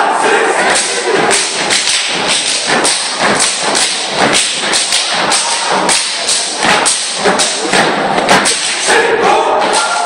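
Step team stomping and clapping, a quick run of sharp thuds and slaps in a fast, uneven rhythm.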